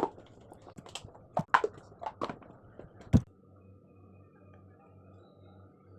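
Steel lunch box containers and lids knocking and clinking as they are handled: a run of sharp knocks over about three seconds, the last one the loudest, then only a faint low hum.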